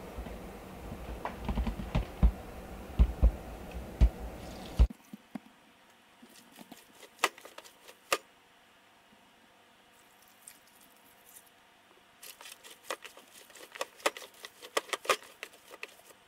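Hands kneading liquid seasoning into a tub of ground venison and pork: scattered wet squishes and slaps in two flurries. A few low thumps come in the first few seconds over room hum.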